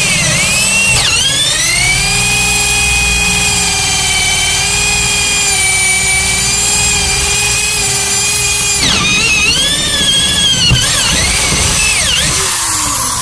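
Corded electric drill boring a cable hole through a sailboat's steering-pedestal base. The motor whine climbs to a steady high pitch in the first couple of seconds and holds, then wavers up and down as the speed changes about two-thirds of the way through, easing off near the end.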